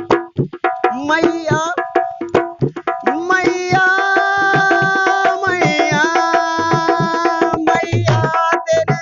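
Dholak drumming in a fast, steady rhythm under an instrumental passage of a bhajan, with long held melodic notes over the drum for most of the middle.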